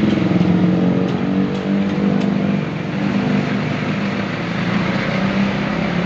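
A motor vehicle engine running steadily, a continuous low hum.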